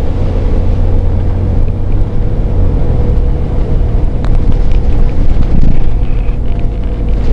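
Cabin noise on the lower deck of a Volvo B7TL Wright Gemini double-decker bus under way: a loud, steady low engine and drivetrain rumble with a faint constant hum and scattered small rattles. The low engine note shifts about two and a half seconds in.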